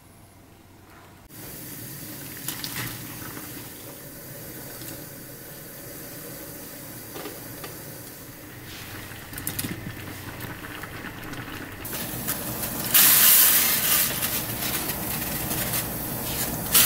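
Water in pots on a gas stove, with doenjang soup and tofu for blanching: a steady hiss of cooking water and a few light knocks. The hiss grows much louder in the last four seconds.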